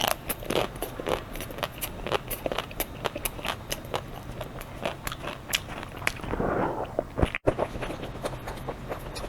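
Chocolate shell of a Magnum Ruby ice cream bar cracking as it is bitten and chewed close to the microphone: a run of many small, sharp crackles, with a brief cut-out about seven and a half seconds in.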